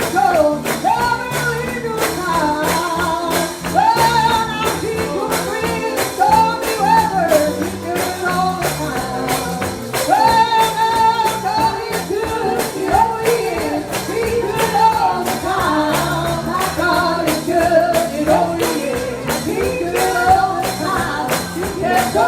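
Gospel song: singing over instrumental accompaniment with a steady, evenly spaced percussion beat.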